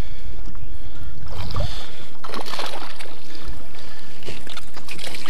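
Steady wind and water rumble on the chest-mounted microphone, with short splashes and rattles as a small largemouth bass is reeled in on a baitcasting reel and thrashes beside the boat.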